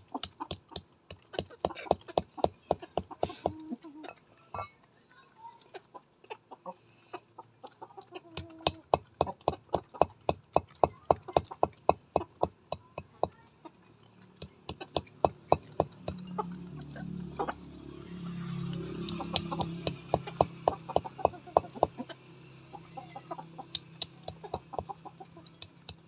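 A flock of chickens pecking grain off hard ground: many quick, irregular taps of beaks, with soft clucking. A low hum swells for a few seconds after the middle.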